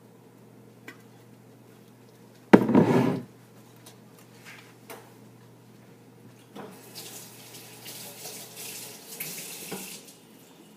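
A short, loud burst of noise about two and a half seconds in, then water running from a tap for about three seconds near the end.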